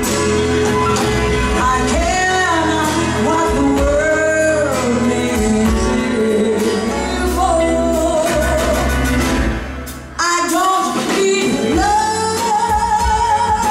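A woman singing a song with a live band behind her. About ten seconds in, the music dips and cuts to a different song, again a woman singing with the band.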